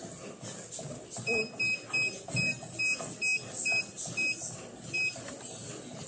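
Treadmill console beeping about nine times in quick succession, each a short, high electronic beep, with a pause before the last one. Underneath, jogging footfalls land on the running belt.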